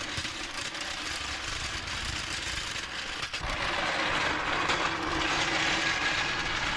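Hand ratchet clicking quickly and steadily, as when spinning lug nuts, with a brief pause about three and a half seconds in and louder afterwards.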